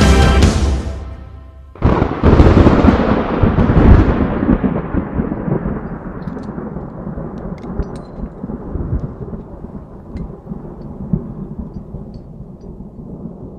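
Music fading out, then about two seconds in a sudden crack of thunder followed by a long rolling rumble that slowly dies away.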